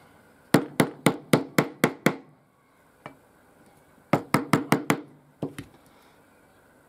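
A wooden block knocking on a wooden plug in the top of an upright tube, driving it down: a run of about seven quick knocks, a pause, then another run of five or six, with two lighter knocks after.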